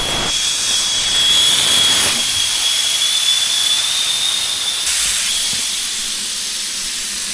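Air hissing steadily out of a travel-trailer tire through the open valve stem, its valve core removed, with a thin whistle on top of the hiss: the tire deflating ahead of dismounting.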